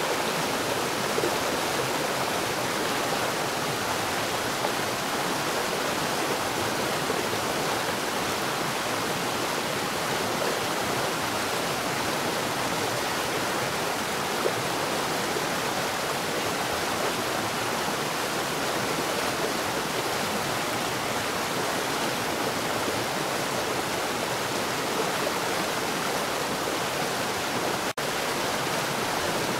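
Water falling rapidly underground, a steady rushing splash with no let-up, broken only by a split-second dropout near the end.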